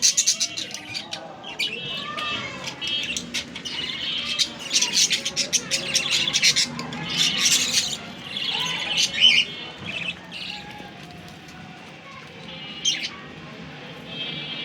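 Budgie chirping and chattering: rapid runs of sharp chirps, clicks and warbles, busy for the first two thirds, then thinning to a few calls with one sharp chirp near the end.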